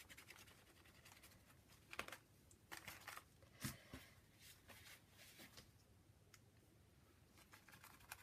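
Faint rubbing of fingertips smearing wet Dylusions paint across a paper journal page, with a couple of soft knocks about two and three and a half seconds in.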